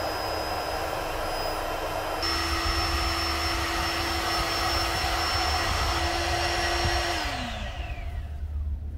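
Electric air pump inflating an air mattress, running with a steady whine. A bit over two seconds in it gets a little louder and higher, and about seven seconds in it is switched off, its pitch falling as it spins down.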